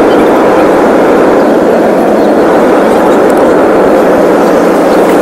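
Jet airliner in flight heard from inside the cabin: a loud, steady rush of engine and airflow noise.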